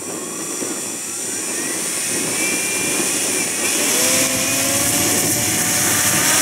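Electric motor and propeller of a radio-controlled Cessna 336 Skymaster model powering up for a takeoff run across a grass field. The sound grows steadily louder, and about two thirds of the way in a motor whine comes in and rises slightly in pitch.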